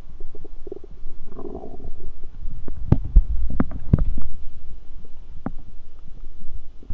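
Stomach growling: a low rumble with bubbling gurgles, and a quick run of sharp gurgling pops about three to four seconds in.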